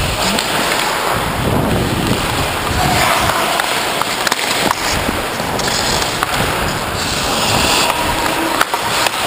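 Hockey skate blades carving and scraping on the ice close up, continuous through the play, with a few sharp clicks.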